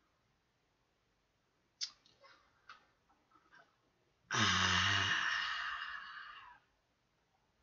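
A man's few short puffs of breath, then a long, loud sigh that starts voiced and fades out into breath: an exasperated reaction to a dark joke.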